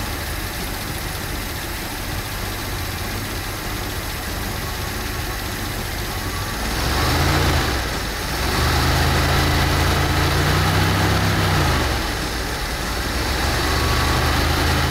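1966 Mercury's 428 cubic-inch Super Marauder V8 with a four-barrel carburettor, idling. It is revved twice: a short blip about seven seconds in, then a longer rev held from about eight and a half to twelve seconds, before dropping back to idle.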